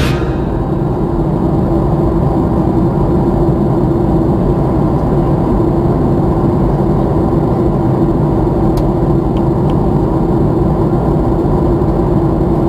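Cabin noise of a jet airliner in cruise flight: a steady, even rumble of engines and rushing air with a constant low hum.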